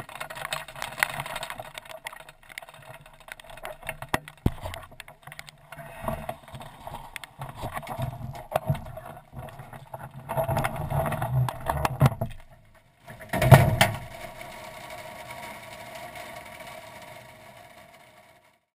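Irregular knocking and rattling of a Hobie 21 catamaran's gear being handled on its trailer, close to the camera mounted on the spinnaker pole, with one loud knock about thirteen seconds in. A fainter steady sound follows and fades away near the end.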